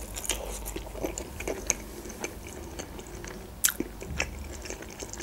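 Close-miked chewing of a soft boiled khinkali dumpling, with wet, sticky mouth clicks at an uneven pace.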